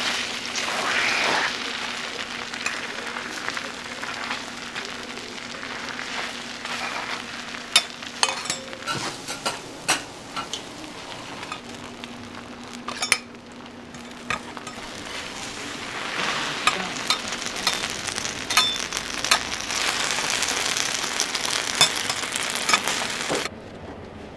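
Food sizzling on a hot iron teppan griddle, with metal spatulas clicking and scraping against the plate. The sizzle cuts off suddenly near the end.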